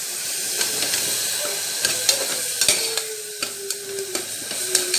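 Onions and ginger-garlic paste sizzling in hot sesame oil in a pressure cooker, with a steady frying hiss. The stirring spoon clicks against the pot many times.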